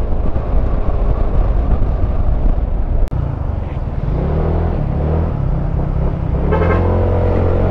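Motorcycle engine running while riding, with wind noise on the microphone. From about three seconds in, a steady low engine hum comes through more clearly.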